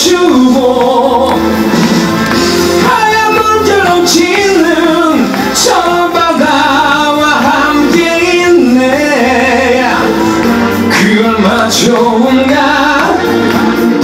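A male singer sings live into a handheld microphone over instrumental accompaniment, amplified through a PA system.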